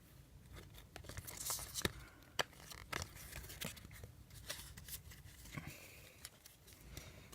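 Basketball trading cards being handled and flipped through by hand: soft rustling with a dozen or so faint, irregular clicks and snaps as cards slide and flick against each other.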